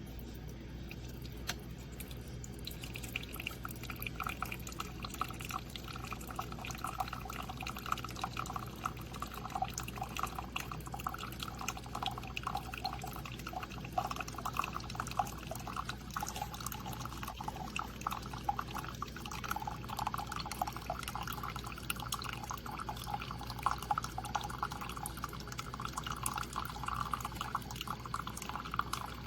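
Water pouring and dripping steadily, a flickering splashing stream that sets in about two to three seconds in and keeps going.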